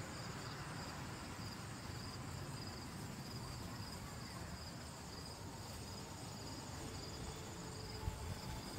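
Crickets chirping faintly in a steady, even pulse over a low background rumble.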